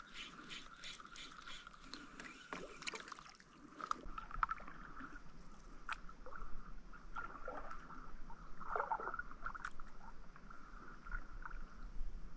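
Kayak paddle strokes in calm, shallow water: the blade dipping, splashing and swirling at irregular intervals. In the first few seconds there is a rapid, even ticking.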